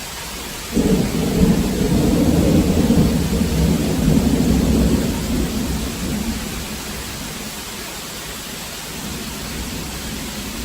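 A peal of thunder breaks about a second in and rumbles for several seconds before dying away, over the steady hiss of a heavy downpour of rain.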